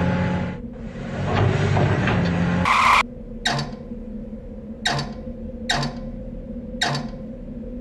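Cartoon sound effects of a tracked excavator digging: a steady low engine hum under four sharp mechanical clanks with creaking trails, about a second apart. Before them the background music fades out and a short bright tone sounds.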